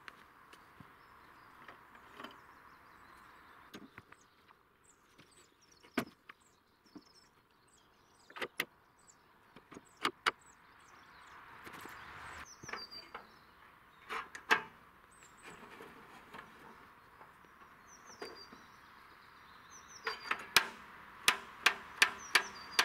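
Scattered sharp knocks and clunks of timber and metal fittings as a log is handled on an aluminium chainsaw-mill bed, with a quick run of about six knocks near the end. Small birds chirp faintly in the background.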